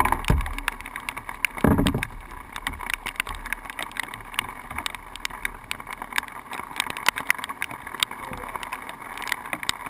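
Irregular small clicks and taps of an angler's gear and hands against a canoe, picked up through the canoe itself. One dull thump comes about two seconds in, over a faint steady hiss.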